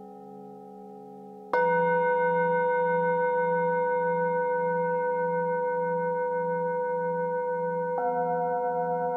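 Metal singing bowls struck with a mallet and left to ring. A bowl is already ringing softly; about a second and a half in, another bowl is struck and rings much louder with a slow pulsing waver, and near the end a further bowl is struck, adding another note to the ringing.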